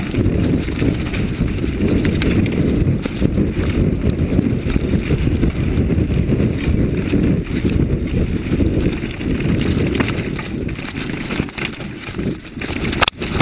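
Downhill mountain bike running fast down a rough dirt trail: a steady low rumble and rattle from tyres and frame over the ground, with a sharp knock near the end.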